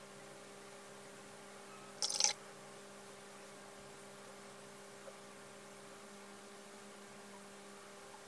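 Faint steady electrical hum with one short, scratchy brush stroke on cotton watercolour paper about two seconds in.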